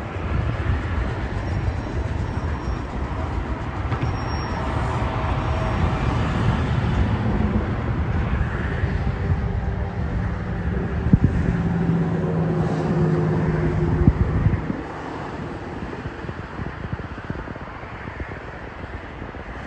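Loud, low rumble of a passing heavy vehicle with a steady engine hum, which drops off suddenly about fifteen seconds in to a quieter background rumble.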